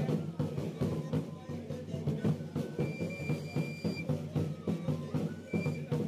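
Traditional Tzotzil carnival music: a drum beats a steady rhythm while a high flute plays over it, holding one long note about halfway through.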